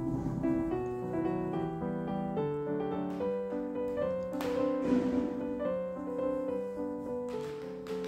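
Piano music, with several notes sounding together as the melody moves on. A brief rustling noise comes about halfway through.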